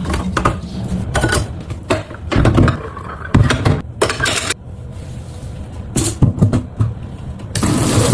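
Dishes knocking and clattering as they are handled at a sink, with a low rumble under them; running water starts again near the end.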